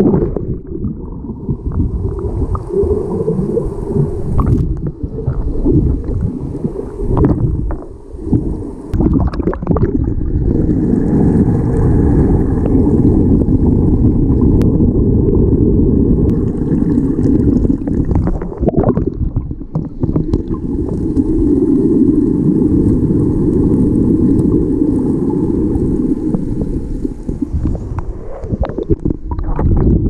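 Waterfall water churning into its plunge pool, heard underwater: a muffled, deep rumble of falling water and bubbles that rises and falls in loudness.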